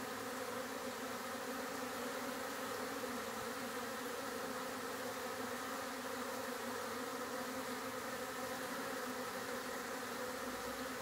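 Honeybees buzzing in a steady, even hum as dozens fly in and out at the entrance of a busy hive, with foragers hauling in pollen.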